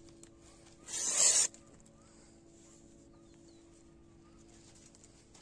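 A brief, loud rustle about a second in as a thin sheet is handled and spread over a set trap, over a faint steady hum.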